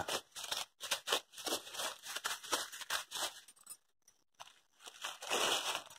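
Dry grass and straw rustling and crunching in short, irregular crackles, with a brief lull about four seconds in and a louder rustle just after five seconds.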